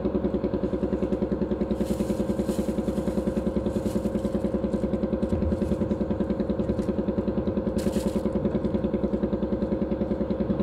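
An engine running steadily at idle, with an even, rapid pulse. A brief hiss is heard about eight seconds in.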